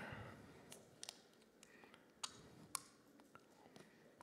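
Near silence with a few faint, scattered clicks and crackles of a plastic water bottle being handled and drunk from.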